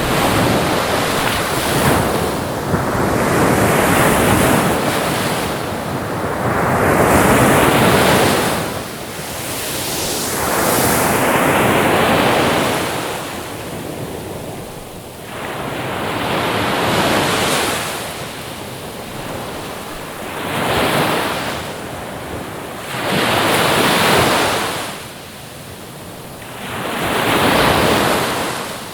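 Ocean waves surging in and washing back, each wave swelling and fading, one every three to four seconds.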